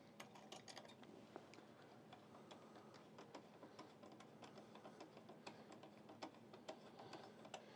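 Faint, irregular small metallic clicks of a screwdriver starting the two mounting screws of a Noctua NH-U12S Redux CPU cooler.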